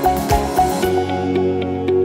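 Background music. A steady beat with kick drum plays for about the first second, then the drums drop out, leaving held tones and light plucked notes.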